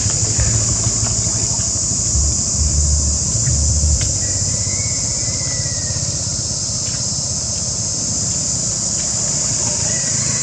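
Steady, high-pitched insect chorus droning throughout, with low rumbling in the first few seconds and a faint short whistle about five seconds in.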